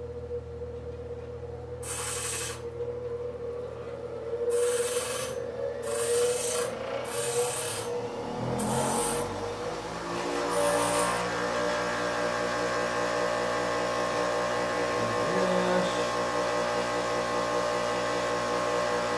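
Grinder running with a steady whine while the end of a snapped-off steel spoke rod is ground against it in several short passes, the metal hissing on each contact. The passes fall in the first half; after that the grinder runs on alone with its steady whine.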